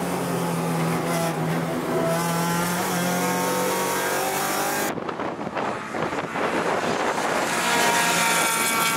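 Honda EK4 Civic SiR's 1.6-litre VTEC four-cylinder engine revving hard under acceleration on track, its pitch climbing steadily. About halfway through the sound changes abruptly to the car heard from trackside, accelerating again with a rising pitch.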